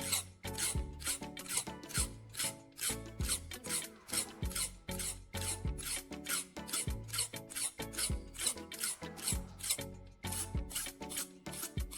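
A knife blade being sharpened with quick, rasping back-and-forth strokes, several a second, over background music with a steady beat.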